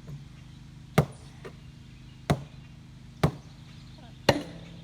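An axe striking the sheet-metal shell of an old water heater four times, about once a second, each a sharp whack, with a lighter knock after the first.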